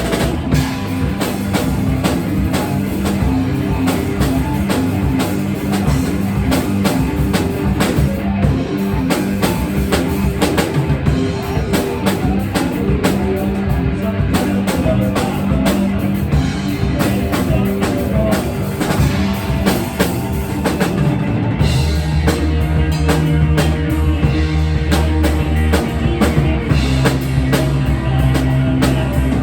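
Rock music played on a drum kit, with guitar and sustained bass notes that shift to a new chord about two thirds of the way through.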